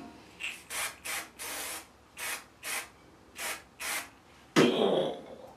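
Aerosol can of silicone spray hissing out in about eight short bursts, used as a lubricant so a cork rod handle will slide onto a rod section. Near the end comes a louder, lower sound.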